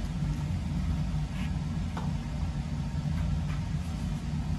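A steady low rumble of background machinery, with a few faint knocks and scrapes as a sheet of drywall on a test frame is handled and turned around.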